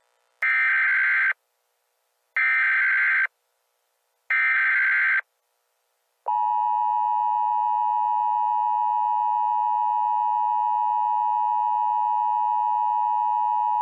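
Emergency Alert System SAME header: three short digital data bursts about two seconds apart. From about six seconds in comes the steady EAS two-tone attention signal (853 and 960 Hz), which announces the alert message.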